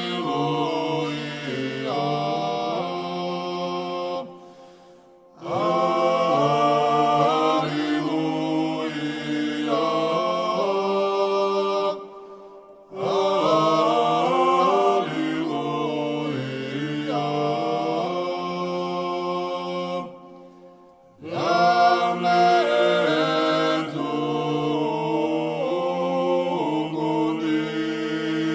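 Georgian Orthodox church chant: a choir singing unaccompanied in three-part harmony, in long held phrases with three brief breaks between them.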